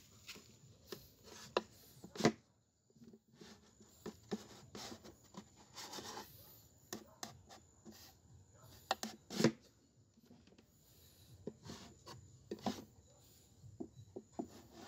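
Hand woodworking on molave wood: irregular wooden knocks and taps mixed with rubbing and scraping. The two sharpest knocks come about two seconds in and about nine and a half seconds in.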